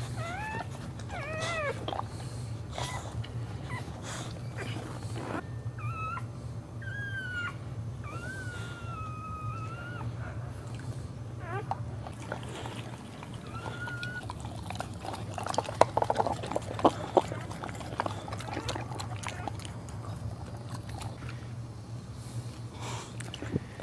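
A dog whining while whelping: several high cries that slide up and down in pitch, some drawn out, with a few sharp clicks partway through and a steady low hum underneath.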